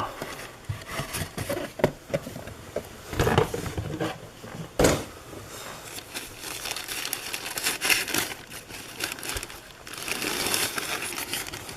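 A new camera being unwrapped from its packaging: wrapping crinkling and rustling in irregular handfuls, with two sharp knocks about three and five seconds in.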